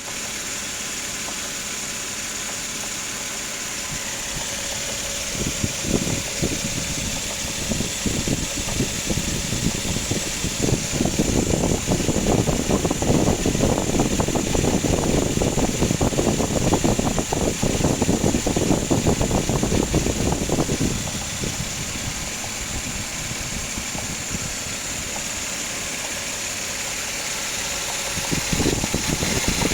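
Suzuki Grand Vitara XL-7's 2.7-litre V6 engine running with a rapid, woodpecker-like knocking. The knocking grows louder about five seconds in, is loudest through the middle, eases off, and picks up again near the end. The knock persists although a complete timing belt set was fitted 3,000 km earlier, and its cause is unknown.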